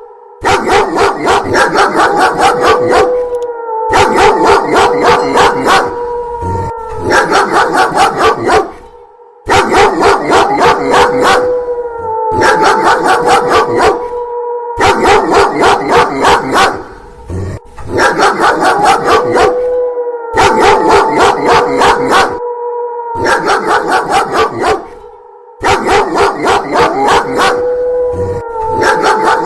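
Rapid, loud dog barking, several barks a second in bursts of a few seconds with short breaks between, and a drawn-out howl that glides in pitch recurring over it every four seconds or so.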